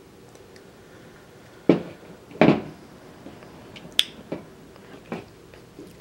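Steel snap ring pliers being handled and set down on a table: a few scattered knocks and light metal clicks, the sharpest about four seconds in.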